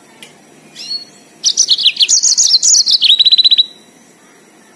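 Yellow-fronted canary singing: a short call, then a loud burst of quick, high warbling notes lasting about two seconds that ends in a rapid even trill.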